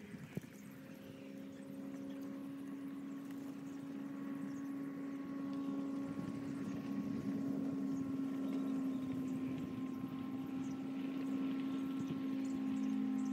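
A steady engine or motor hum at an even pitch, growing slowly louder.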